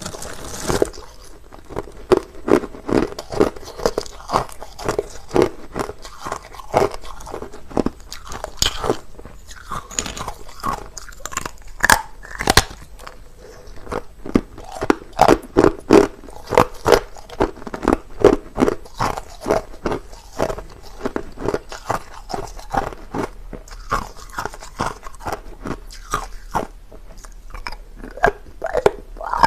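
A person biting and chewing hard, clear crushed ice close to the microphone: a continual, irregular run of sharp crunches, several a second.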